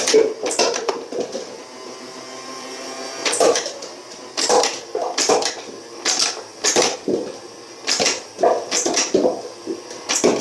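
Toy foam-dart blaster's motor whirring steadily for about three seconds, then a run of sharp clacks, roughly one a second, as the darts fire and strike a stack of paper cups.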